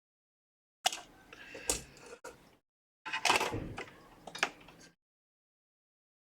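Two short spells of clicks, taps and scraping as small tools and parts are handled on a repair bench, the first starting about a second in and the second about three seconds in.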